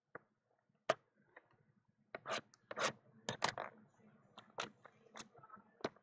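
Cardboard trading-card mini boxes being handled and stacked on a tabletop. There is a sharp tap about a second in, then scraping, rubbing and clicking of cardboard against cardboard.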